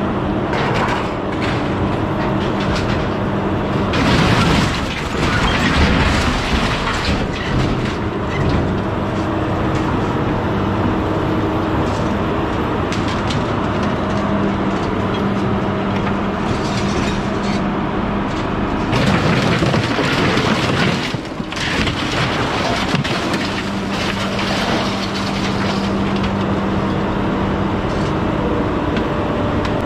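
Engine and hydraulics of a scrap grapple loader running steadily, with a constant droning hum. Two louder, noisier stretches come about four seconds in and again about nineteen seconds in, as the grapple handles scrap metal.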